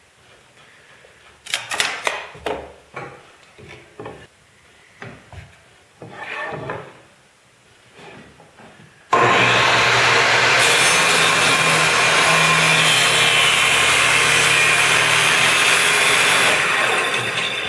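Table saw ripping a bevel along a strip of wood, starting suddenly about nine seconds in, running loud and steady for about seven seconds and dying away near the end. Before it, scattered light knocks and rustles of wood and tools being handled on the saw table.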